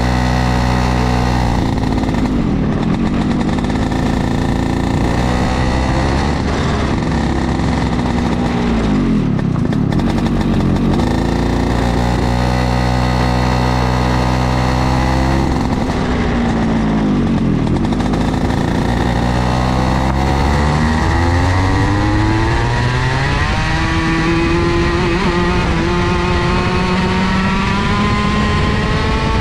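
IAME KA100 100cc two-stroke kart engine heard onboard, running at low revs with its pitch sagging and recovering three times, then climbing steadily through the last several seconds as the kart accelerates.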